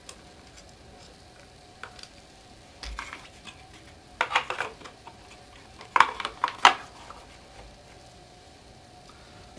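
Clicks and clatter of hard parts being handled as a Onewheel Plus's cover plate is fitted back over the wire harness connector: a few short clusters of knocks, the sharpest about six and almost seven seconds in.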